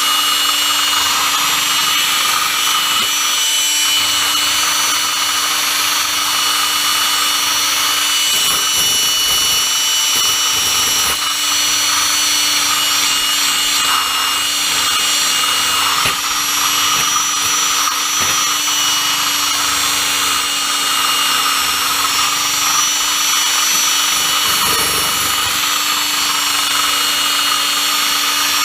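An electric motor running at a constant speed without a break, with a steady high whine.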